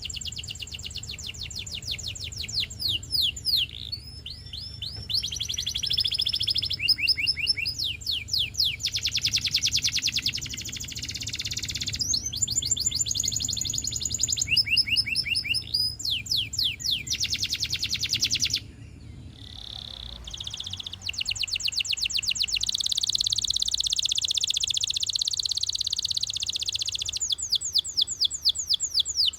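Domestic canary singing a long song of fast trills, each trill a rapid run of repeated high sweeps, switching to a new trill every second or two, with a short break about two-thirds of the way through. A faint low hum runs underneath.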